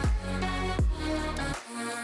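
Electronic background music with sustained synth chords and a deep kick drum that drops in pitch, hitting twice.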